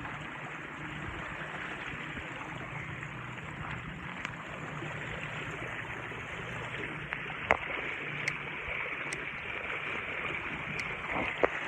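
Steady rush of flowing floodwater, with a faint low hum under it. There is a sharp click about seven and a half seconds in, and another just before the end.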